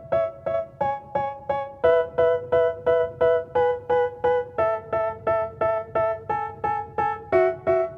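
Background music: a piano-like keyboard playing short repeated notes in a steady pulse, about three and a half a second, with the notes shifting to a new pitch every second or two.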